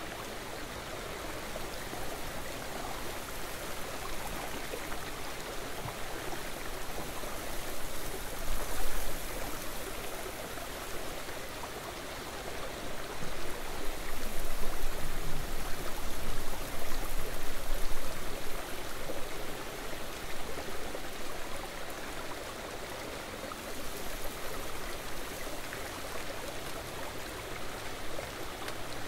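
Steady rushing of flowing river water, swelling louder for a few seconds midway.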